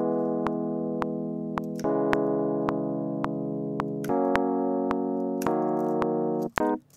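Electric piano software instrument playing a slow progression of held triads that fit a natural minor scale, each note turned into a chord by MIDI effects. The chord changes about two, four and five and a half seconds in and stops about six and a half seconds in, over a steady metronome click at a little under two clicks a second.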